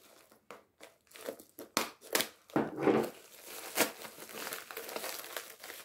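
A white plastic mailer bag crinkling and tearing as hands pull it open, in irregular crackles with a few sharper snaps about two and four seconds in.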